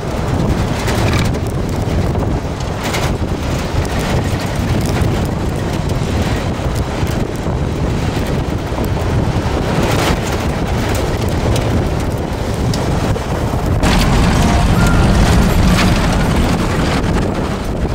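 Off-road vehicle driving along a rough dirt track, a steady rumble of engine and tyres with wind buffeting the microphone. Occasional knocks as it jolts over bumps, and the noise grows louder about fourteen seconds in.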